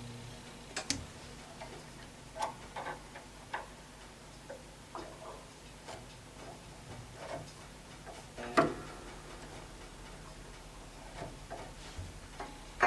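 Scattered light clicks and taps from grand piano damper parts being handled and fitted, with one sharper knock about two-thirds of the way through.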